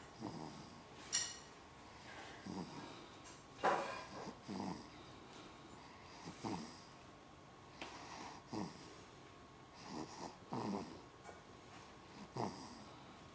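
Snoring: short, breathy snores about every two seconds, each one falling in pitch. A sharp click comes about a second in.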